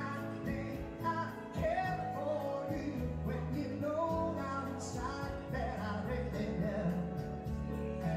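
Live duo: a woman singing a melody into a microphone, backed by keyboard and a steady beat.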